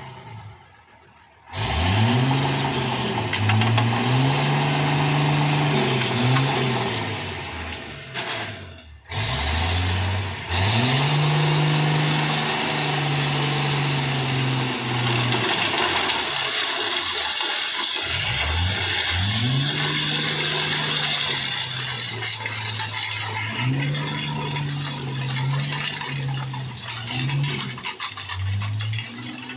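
A heavy vehicle's engine revving up, holding, and dropping back again and again, with a steady rattling clatter over it.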